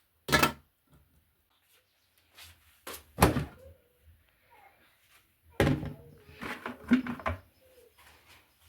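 Sharp knocks and thuds of household objects being handled: one just after the start, a louder one about three seconds in, then several in quick succession around six to seven seconds, with faint handling noise in between.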